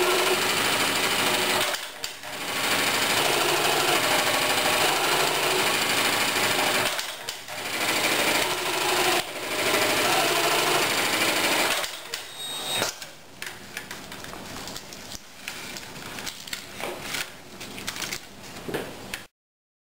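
Computer-controlled pattern sewing machine stitching through a template jig, a loud rapid needle clatter with two brief pauses, stopping about twelve seconds in. Afterwards come scattered clicks and knocks as the jig and fabric pieces are handled.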